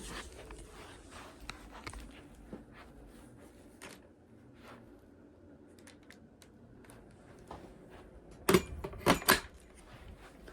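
Scattered light clicks and knocks of something being handled, with three loud sharp clacks close together near the end.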